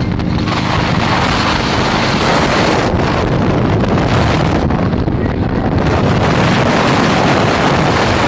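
Wind rushing over the microphone of a motorcycle moving at highway speed, with the engine running underneath.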